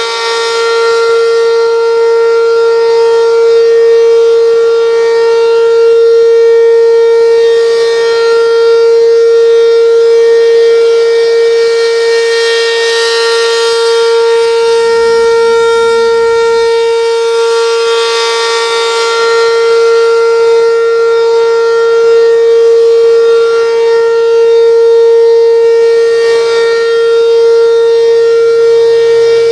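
Restored Werden outdoor warning siren sounding one steady tone during a siren test, its loudness swelling and fading slowly.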